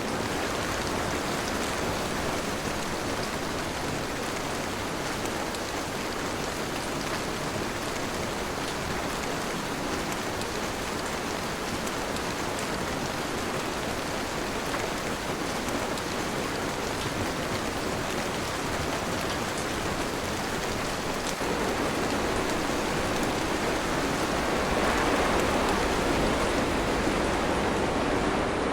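Steady heavy rain falling, a continuous dense hiss of drops, growing somewhat louder in the last several seconds.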